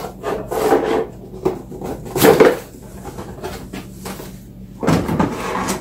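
Cardboard box flaps being pulled open and handled, scraping and rustling in three bouts. The loudest comes about two seconds in.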